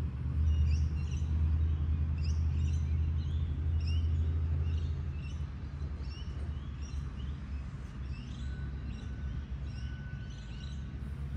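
Outdoor birdsong: many short, high chirps and sweeping calls from several small birds, over a low rumble that eases about halfway through. A faint, thin steady tone comes in near the end.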